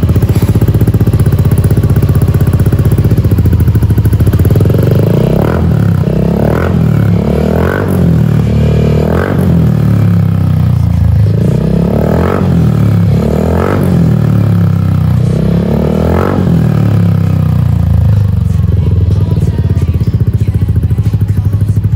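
Yamaha NMAX scooter's single-cylinder engine running loudly through a Prospeed Black Series aftermarket exhaust with its dB killer baffle removed. It idles with a low rumble and is blipped about eight times with quick throttle revs in the middle, then settles back to a steady idle.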